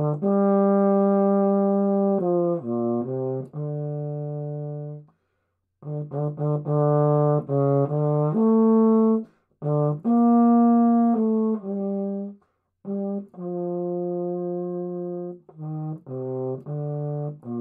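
Euphonium playing a slow melodic passage solo: long held notes alternating with groups of shorter notes, some tongued and some slurred, broken by three short pauses.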